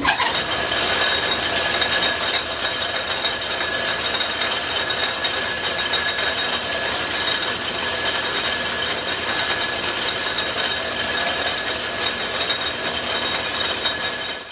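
Restored Atlas metal lathe running under power, driven through belts by a quarter-horsepower GE electric motor with the spindle in back gear: a steady mechanical whir with a steady high whine through it. It starts as the lathe is switched on and cuts off abruptly near the end.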